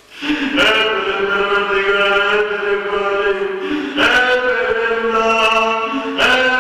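Men chanting a Shia mourning lament (noha) in long, held melodic notes, with the phrase breaking and starting afresh about four seconds in and again near the end.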